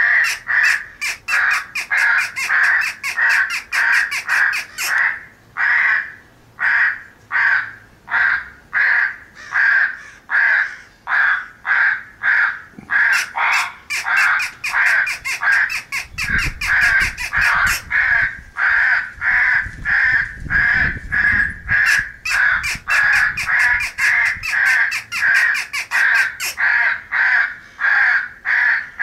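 Crows cawing over and over in quick succession, about two caws a second with no gaps: a recorded crow morning call of feeding corvids, made as a sound file for an electronic crow caller. A low rumble sits under the calls for a few seconds past the middle.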